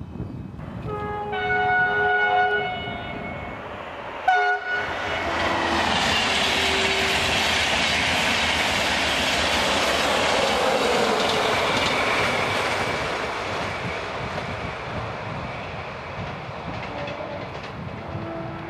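Passenger train sounding its horn in a long two-note blast and then a short toot. It then rushes past at speed, the noise swelling, dropping in pitch as it goes by, and slowly fading away.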